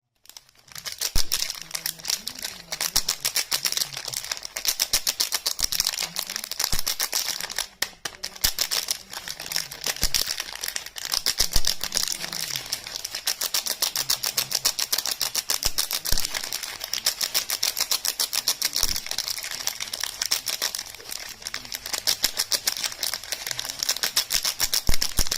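Rapid crisp clicking, many sharp clicks a second and nearly unbroken, from hands handling soap bars and their packaging close to the microphone.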